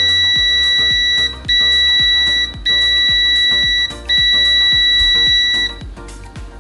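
VENLAB VM-600A digital multimeter's continuity buzzer sounding four times, a loud, steady, high-pitched beep each time, each lasting about one to one and a half seconds with short gaps. This is the meter's latched continuity beep at its maximum volume, which reads about 75.5 dBA on a sound level meter beside it.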